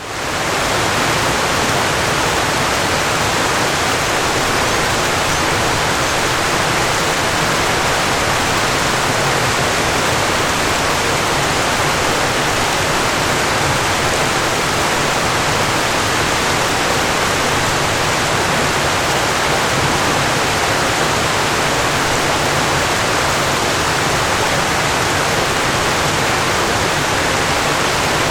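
Steady rush of falling water, a waterfall, even and unbroken, fading in quickly at the very start.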